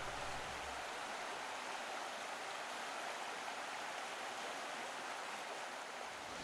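Steady rushing hiss of water: a canyon waterfall and falling rain.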